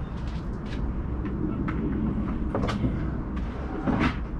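A few short knocks and clicks of plastic and metal Sinclair C5 parts being handled during a strip-down, over a steady low rumble.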